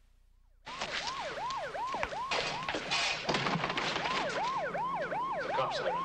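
Emergency vehicle siren starting suddenly under a second in, a fast yelp sweeping up and down about three times a second, with a second, higher siren joining about halfway through; it sounds like it's coming down the street.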